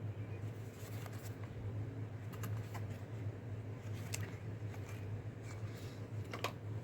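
Light handling sounds of a small cardboard knife box being opened: a few scattered soft clicks and scrapes over a steady low hum.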